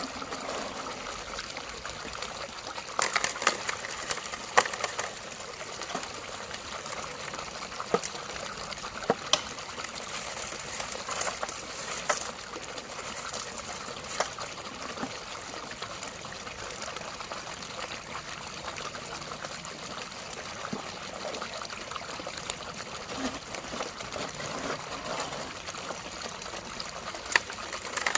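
Water trickling steadily, with scattered sharp clicks and knocks, a cluster of them a few seconds in and more near the end.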